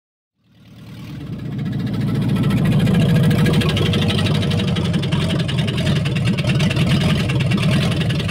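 Swapped-in Chevy 350 small-block V8 running in the S10 Blazer, fading in from silence over the first two seconds and then holding a steady, loud, rapidly pulsing note.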